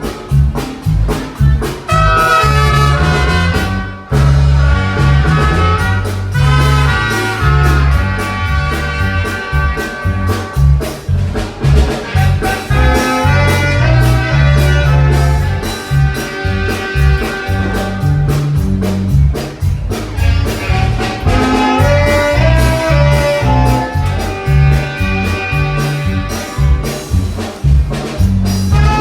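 Loud brass-led dance music with a steady beat and a heavy, pounding bass line.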